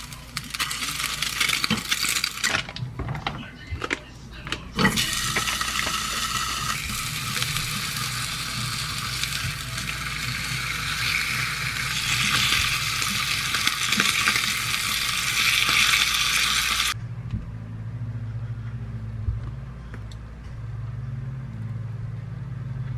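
Food sizzling in a small nonstick frying pan on a gas stove, a fried egg and then slices of duck meat, with a few sharp utensil clicks against the pan. The sizzling cuts off suddenly about three-quarters of the way through, leaving a low hum.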